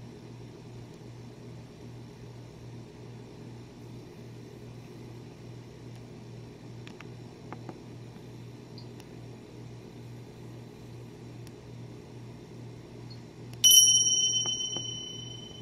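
A steady low hum throughout, and near the end a single sudden bell-like ding that rings clearly and fades away over about two seconds.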